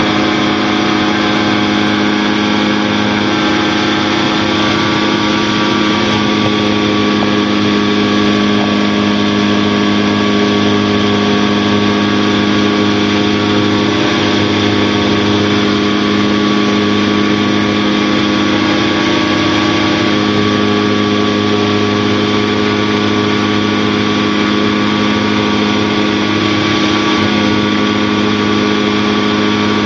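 Challenger II light aircraft's engine and propeller droning steadily in level flight, heard from inside the open cockpit, with an even hiss over the drone.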